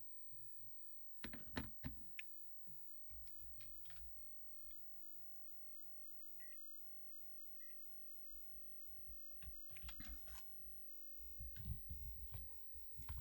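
Scattered light clicks and knocks from small objects being handled on a workbench, with low thumps, and two short faint beeps about a second apart midway through.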